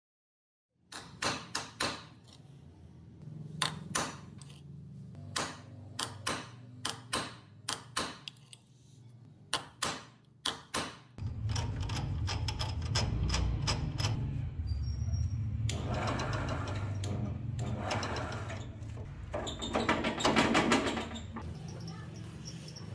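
Sharp metal taps, about a dozen spread over ten seconds, as a hammer strikes a centre punch to mark the drilling points on a steel clutch sprocket. Then, about eleven seconds in, a drill press motor starts and runs steadily, with stretches of dense rattling in the later part.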